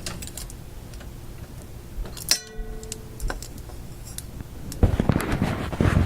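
Handling noises: scattered clicks and knocks, a brief ringing tone a little over two seconds in, and a louder stretch of rustling and clatter near the end, over a faint steady low hum.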